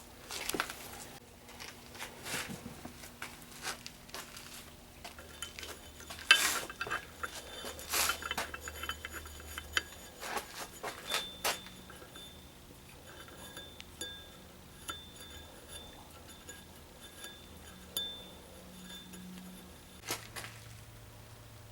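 Small metal parts of a forced-air torpedo heater clinking and tapping as they are handled and fitted back together, in irregular sharp clinks, a few of them ringing briefly.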